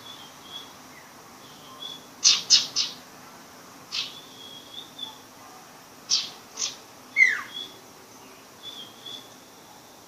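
Young sirpu bird practising its song while still learning it: loud, sharp chirps in small clusters, one sliding steeply down, with soft thin whistled notes between them.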